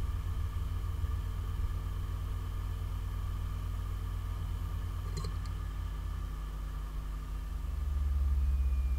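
Western Digital WD5000AURX 500 GB, 5,400 RPM 3.5-inch hard drive spinning steadily at speed, a steady hum with a few faint high tones, and a single short click about five seconds in.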